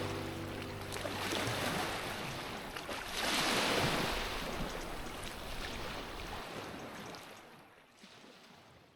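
Sea waves washing onto the shore, one surge swelling about three seconds in, the sound fading out near the end.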